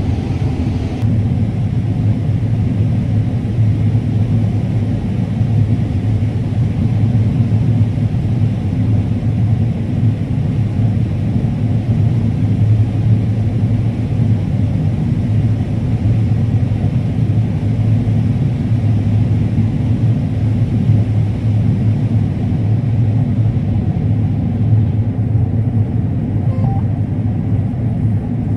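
Combine harvester running steadily while harvesting corn, heard from inside the cab: an even, loud low drone.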